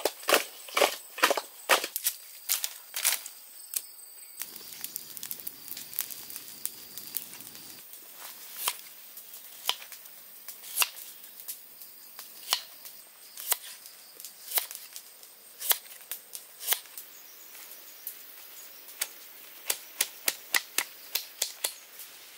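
Large kitchen knife striking a round wooden chopping block as it slices ginger and chops green onions. The knocks come at irregular intervals, with quicker runs of chops at the start and near the end.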